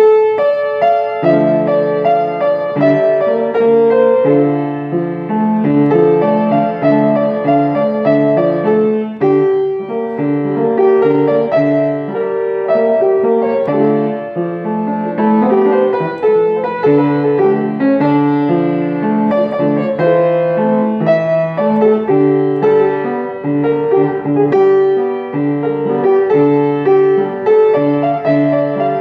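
Piano music played on a keyboard instrument: a melody over lower chords in a steady, even rhythm, starting suddenly with a loud first chord.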